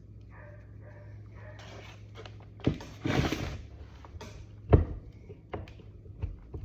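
Sharp metal knocks, two loud ones and several lighter clicks, with a short scraping rattle between them, as a kingpin is worked into a car's steering knuckle. A low steady hum runs beneath the first few seconds.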